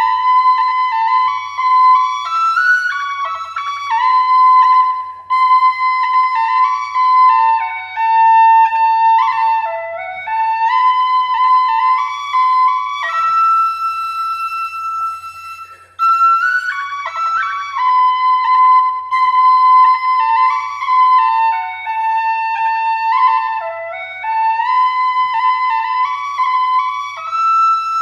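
Background music: a solo flute playing a slow melody, with a long held note about halfway through.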